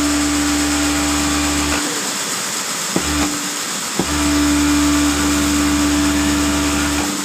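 Overlock sewing machine motor running with a steady hum while stitching a knitted glove's edge, stopping about two seconds in, starting again briefly with a click around three seconds, then running again from about four seconds until it cuts off near the end.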